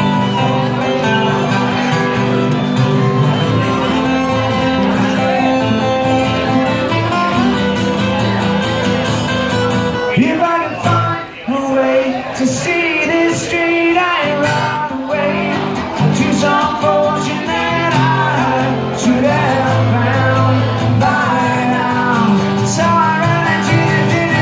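Live acoustic band playing, with guitar: an instrumental passage, a brief drop in the music about ten seconds in, then singing over the band.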